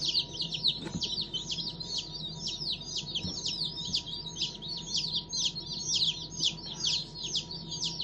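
A crowd of baby meat chicks peeping nonstop: many rapid, high, downward-falling peeps overlapping.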